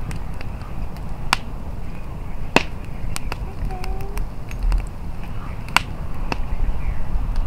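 Crackling fire: scattered sharp pops and clicks, a few stronger than the rest, over a low rumble of wind on the microphone.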